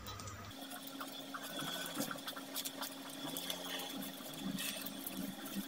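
Plastic bag crinkling and rustling in short irregular bursts as hands squeeze and pack soft fish bait dough into it, over a steady low hum. Background music cuts off about half a second in.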